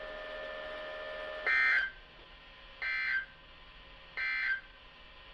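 Emergency Alert System end-of-message data bursts sent three times: short buzzy digital chirps, each about a third of a second, about 1.3 s apart. They mark the end of the weekly test. They follow a faint steady tone that stops at the first burst.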